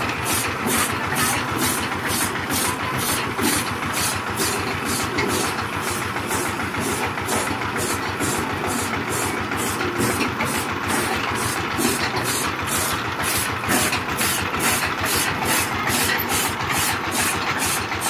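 Miniature walking-tractor model's motor running steadily while it belt-drives a toy chaff cutter that chops grass, with a regular beat about two to three times a second.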